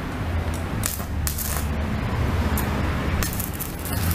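Stick (MMA) welding with a 160-amp inverter welder: the electrode arc crackles and sputters in irregular clicks over a steady low hum.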